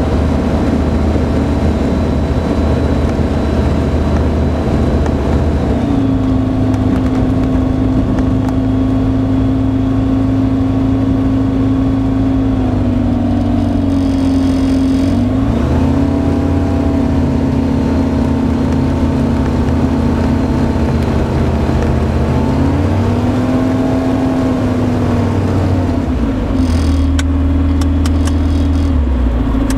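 Kitfox light aircraft's engine and propeller running at taxi power, a steady drone whose pitch dips and comes back up twice, around the middle and again near the end.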